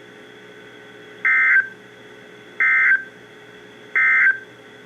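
NOAA Weather Radio EAS end-of-message data tones: three identical short, shrill warbling bursts of digital code, about a second and a half apart, over a steady radio hiss. They mark the end of the severe thunderstorm warning.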